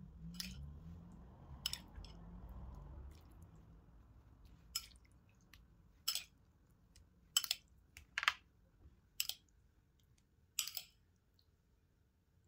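Light, sharp clicks, about eight at irregular intervals, from placing jelly cubes by hand and spoon onto a creamy fruit dessert in a cut-glass bowl.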